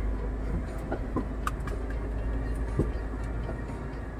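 Scania R440 truck's 13-litre inline-six diesel and road noise while driving, a steady deep rumble heard inside the cab, with a few brief rattles and clicks.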